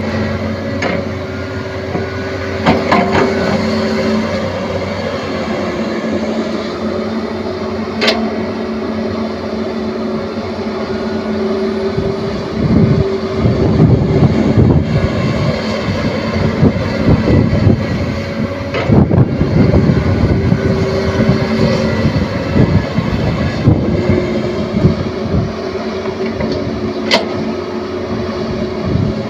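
Caterpillar 320D2 excavator's diesel engine running with a steady hum. It grows louder and rougher in two long stretches, starting a little before halfway and again about two-thirds through, with a couple of sharp clicks.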